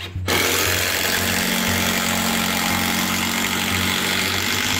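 Cordless drill running steadily as it drives a long screw at an angle through a timber rafter into the top wall board; the motor starts just after the beginning and runs without a break.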